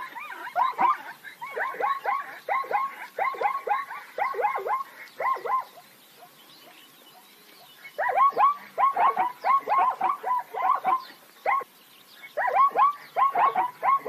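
Plains zebra barking call: runs of quick 'ha-ha-ha' barks, each dropping in pitch, about four a second. The calling breaks off twice, for about two seconds past the middle and again briefly near the end, then starts up again.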